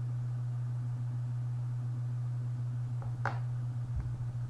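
Steady low hum, with a single sharp click about three seconds in as the plastic safety latch is pushed onto the back of a safety eye's post, then a soft thump near the end.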